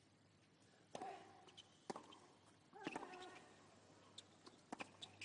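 Hushed tennis stadium before a serve. A few faint sharp knocks come about a second apart, then two close together near the end, most likely the tennis ball being bounced before the serve. A few faint short calls rise from the crowd.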